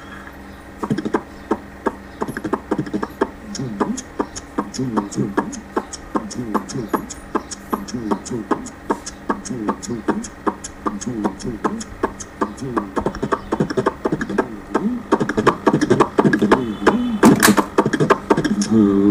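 Vocal percussion from a voice-mimicry artist beatboxing into a microphone: rapid mouth clicks and beats with a wavering hummed tone over them, growing louder in the last few seconds.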